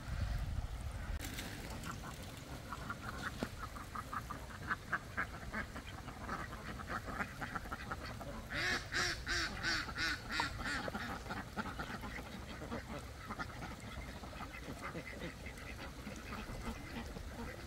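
Domestic fowl calling in runs of short, rapid, repeated quacking or honking calls, loudest for a couple of seconds about halfway through.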